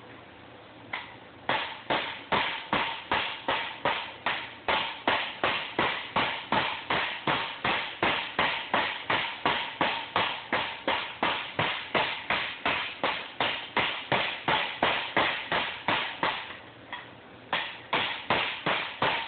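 Body hammer striking a metal header tube transition over a bench dome, steady blows about three a second, each with a short metallic ring, smoothing out waves and ripples in the metal. A single blow about a second in, then steady hammering, with a brief pause near the end before it resumes.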